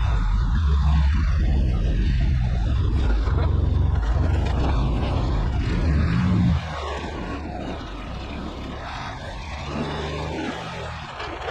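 Delivery truck running, a steady low engine and road rumble heard from the cab, which drops suddenly to a quieter level about six and a half seconds in.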